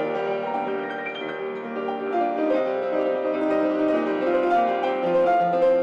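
Yamaha grand piano played solo: a melody over held chords, with bass notes coming in near the end.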